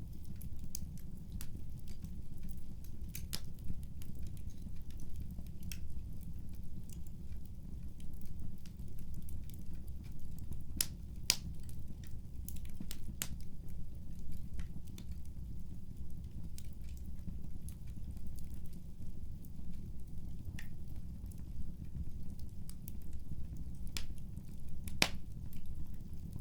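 Fireplace fire burning: a steady low rumble with scattered crackles and pops, a few sharper pops midway and near the end.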